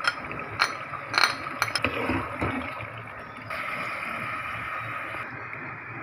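A few sharp clinks and scrapes of a glass bowl and utensils against an aluminium cooking pot, then water poured into the pot for about two seconds from about halfway through, over a steady background hiss.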